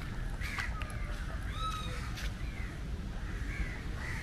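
Crows cawing a few times, scattered short calls over a steady low rumble.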